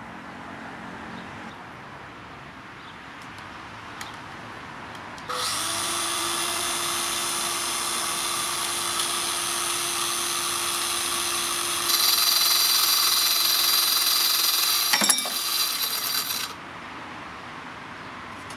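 Makita CC301D 12-volt cordless glass cutter with a water-fed diamond blade starting up with a steady high whine about five seconds in, growing louder as the blade cuts into a 3 mm glass sheet. Shortly before the motor cuts off there is a sharp crack as the glass breaks away from the cut line.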